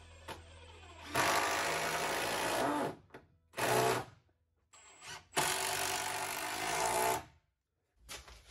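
Power drill driving screws into wooden floor-joist blocking: two runs of nearly two seconds each with a short burst between.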